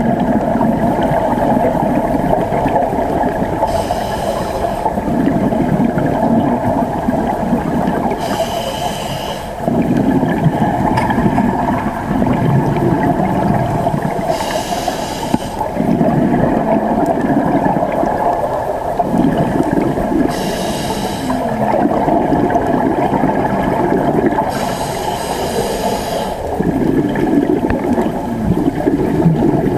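Scuba diver breathing through a regulator underwater. A hissing inhale comes about every five seconds, five times, and each is followed by a rumbling gush of exhaled bubbles, over a steady hum.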